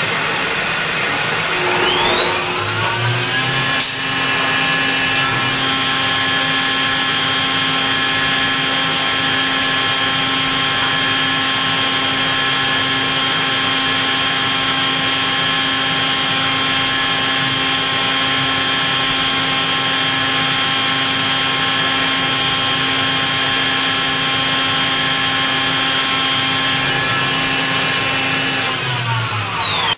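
Makino A71 machining center spindle spinning a small cutting tool up to speed, a whine rising over about three seconds, then a click. The spindle runs at steady speed for laser tool measurement, a high whine of several tones over a steady hiss, and spins down with a falling whine near the end.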